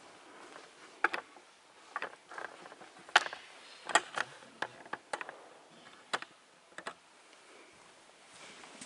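Scattered sharp clicks and light knocks, about a dozen at irregular spacing, over faint room tone.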